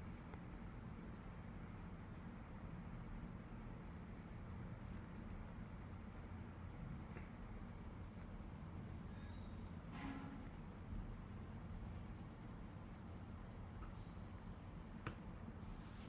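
Faint scratching of a pencil on paper as lines are traced over, with a couple of small clicks about ten and fifteen seconds in.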